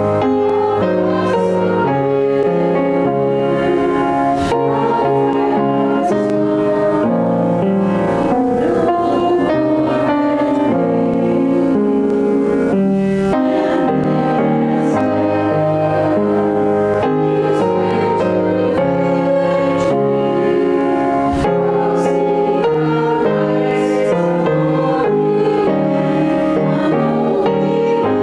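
A hymn sung by a small group of women's voices with piano accompaniment, held notes moving in steps over a steady bass.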